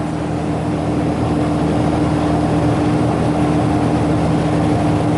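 Walk-in freezer condensing unit running: the condenser fan moving a lot of air through the freshly cleaned coil, with the 1 hp compressor humming underneath. A steady rushing hum with a constant tone, growing slightly louder in the first second.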